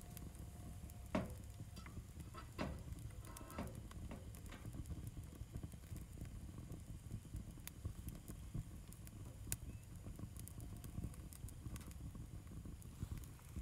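Wood fire burning in a small DIY galvanized-steel backpacking tent stove with its door open: a faint steady rumble of the draft, with a few sharp crackles and pops in the first few seconds and lighter ticks scattered after. The stove is drafting well.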